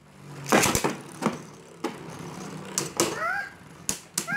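Hard plastic Beyblade parts clicking and knocking: several sharp clicks spaced irregularly, the loudest a little after half a second in. A short rising squeak comes about three seconds in.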